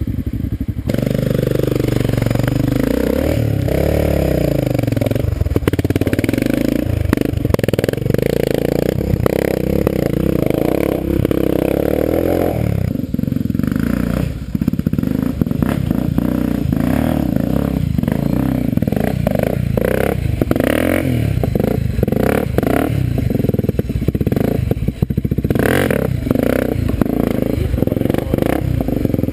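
Off-road dirt bike engines revving up and down as the bikes climb a steep rocky slope, with repeated knocks and clatter.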